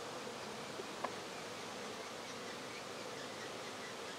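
Saskatraz honey bees buzzing steadily around an open hive, a constant many-bee hum, with one faint click about a second in.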